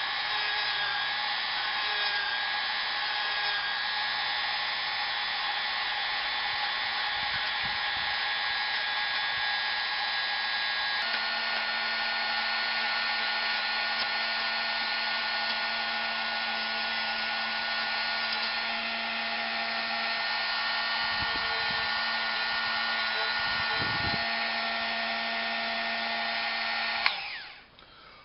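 Dremel rotary tool running steadily at high speed while sanding small leather pieces, a constant high whine. Near the end it is switched off and winds down with a falling pitch.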